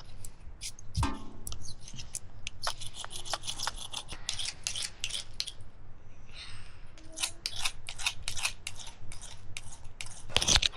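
A run of quick, crisp, irregular snipping clicks that come faster and louder near the end.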